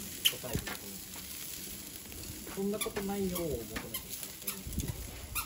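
Meat sizzling on a charcoal barbecue grill, with metal tongs clicking and scraping on the wire grate as pieces are turned. A short pitched call sounds in the background about three seconds in.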